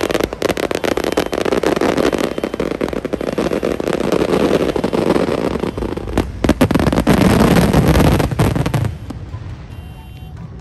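Fireworks display going off in a dense barrage of rapid crackles and bangs, loudest about seven to eight seconds in, then cutting off about nine seconds in. Music starts quietly near the end.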